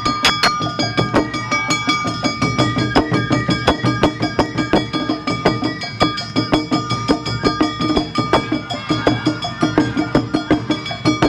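Awa Odori festival music played live: rapid, evenly repeating strikes of a small hand gong and drums in a quick driving rhythm, with ringing metallic tones over the beat.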